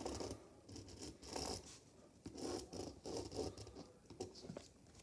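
Pen scratching on paper in a series of short strokes, drawing lines.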